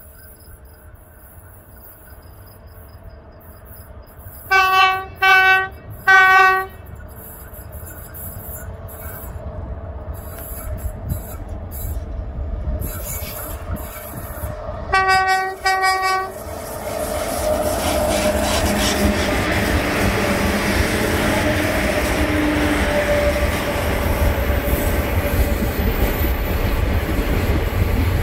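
South African Railways class 18E electric locomotives sounding their hooter: three short blasts, then two more about ten seconds later. After that the rumble of the passing container train grows loud.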